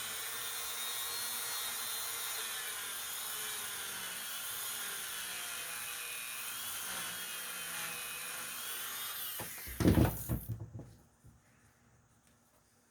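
Small electric rotary tool with a polishing nub running at low speed, buffing the sharp edges of the mouthpiece-screw slits in a chromatic harmonica slide. Its high whine wavers slightly in pitch as it works. It stops about nine and a half seconds in, followed by a few knocks.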